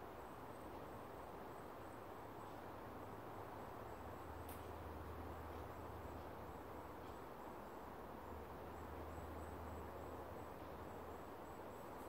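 Faint steady background hiss with a low hum, a thin high-pitched pulsing chirp repeating throughout, and a single sharp click about four and a half seconds in.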